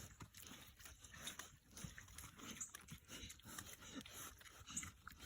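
Pigs eating hot dogs: faint, irregular chewing and smacking sounds.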